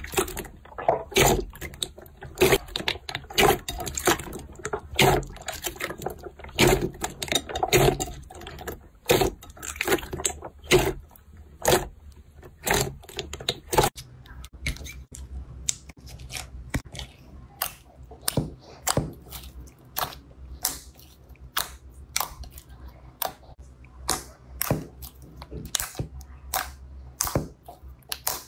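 Crunchy slime pressed and squeezed by hand, giving an uneven run of sharp crackles and pops, fuller in the first half.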